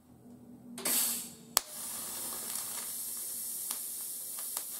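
TIG welding arc struck on cast iron: a short hiss, a sharp crack as the arc starts about a second and a half in, then the arc's steady hiss with a few faint ticks as copper-wrapped stainless filler rod is fed into the crack.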